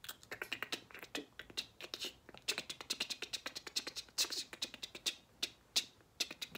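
A person making beatboxing-style mouth sounds: a quick, uneven run of tongue clicks and lip pops with short hummed bits.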